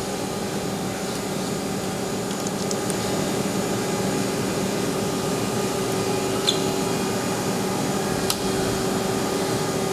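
Steady hum of running shop machinery, with a few even tones in it, and a couple of faint clicks.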